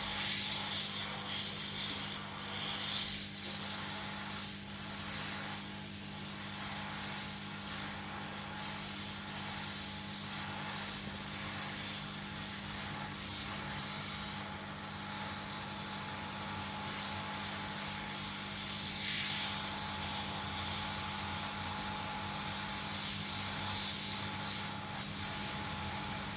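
A hot air rework blower runs steadily with a hum, reflowing solder to seat a battery terminal on a phone circuit board. Short, wavering high-pitched sounds come and go over the first half and again near the end.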